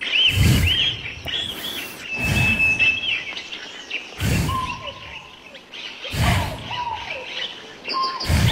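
Small birds chirping, with short arched calls and one long steady whistled note about two seconds in. A deep, low sound recurs about every two seconds and is louder than the birds.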